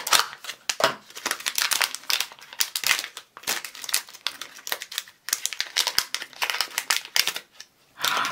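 A small cardboard mystery pin box being torn open by hand along its tear strip, with its packaging crinkled and rustled: a dense, irregular run of crackles.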